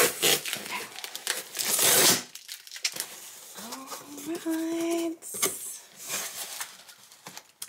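A cardboard shipping box being torn open: the cardboard crinkles and rips, with a loud tearing burst about two seconds in and a few lighter rustles later.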